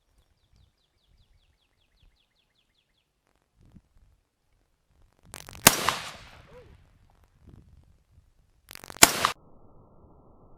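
Two rifle shots about three and a half seconds apart, the first with a long, fading echo.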